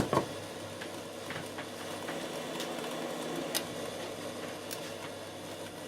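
Mushrooms and onions sizzling in a frying pan, a steady hiss with a few light clicks and a knock right at the start.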